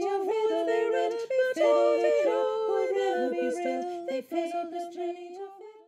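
Unaccompanied voices singing a three-part round, the parts overlapping on different words and notes. Toward the end the parts drop out until a single voice holds the final note, then the sound stops.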